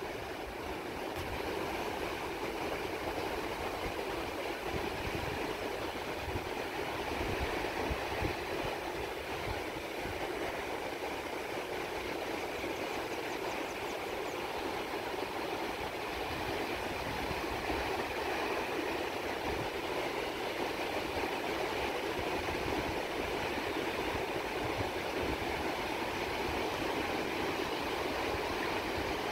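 Atlantic surf breaking and washing onto the shore in a steady, continuous rush of waves, with wind buffeting the microphone in low, uneven rumbles.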